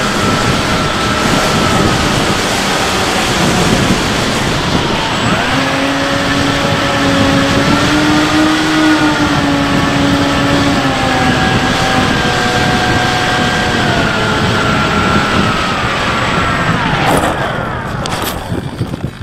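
Bixler 3 RC plane's electric pusher motor and propeller whining, heard from the onboard camera over heavy wind rush. The pitch rises about five seconds in, sags slowly, then drops away as the throttle is cut, and a few knocks near the end are the plane touching down on grass.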